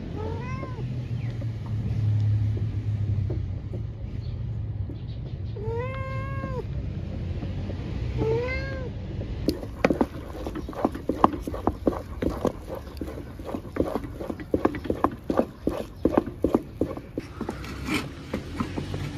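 A cat meowing three times, each a short call that rises and falls, a few seconds apart. From about halfway on, a wooden spoon scraping and knocking in quick strokes against an aluminium pot as a thick porridge is stirred and beaten.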